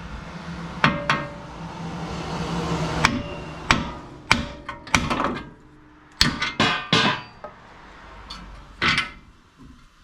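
Hammer blows on metal at the truck's front steering, about a dozen sharp strikes in irregular pairs and clusters, while the old tie rod end is being knocked loose.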